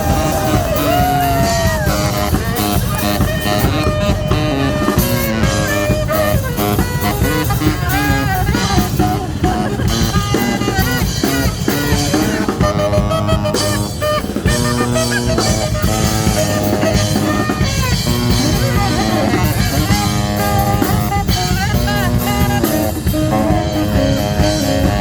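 A band playing loud rock music with drum kit and guitar, continuous throughout.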